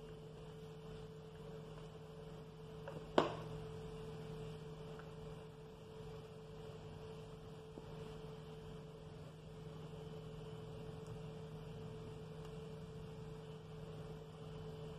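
Steady low electrical hum, with a single short sharp knock about three seconds in.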